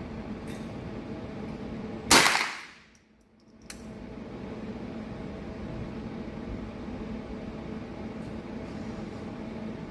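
A single shot from a .22 LR rimfire rifle about two seconds in: a sharp crack with a short ringing tail. A steady low background noise fills the rest.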